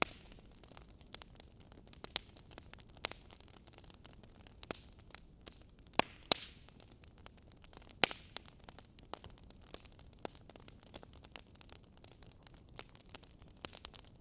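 Wood fire crackling in a fireplace: irregular sharp pops and snaps over a faint steady hiss, the loudest pops about six and eight seconds in.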